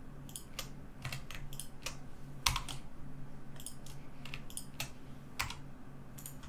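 Computer keyboard keys and mouse buttons clicking in an irregular string of about a dozen taps, the sharpest about two and a half seconds in, over a steady low hum.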